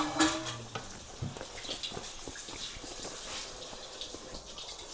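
Close-miked wet chewing: soft, irregular mouth clicks and smacks of someone eating.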